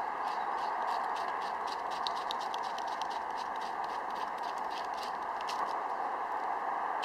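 Knife blade scraping birch bark, a quick irregular run of short dry scratches, over a steady hiss.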